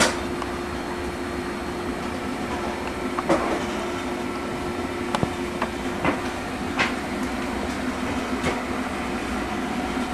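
A steady mechanical hum with two held tones, broken by several sharp clicks and knocks; the loudest click comes right at the start.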